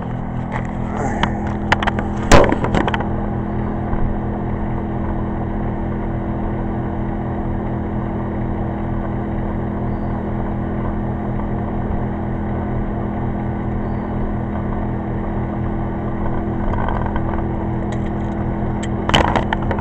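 Pulsar 2300-watt inverter generator running at a steady speed with eco mode off, under the load of a 120-volt electric dryer. A few handling knocks come in the first seconds and again near the end.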